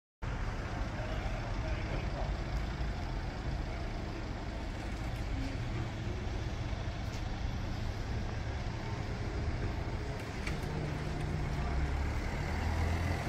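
Street traffic: vehicle engines running, with a deeper engine rumble growing louder near the end.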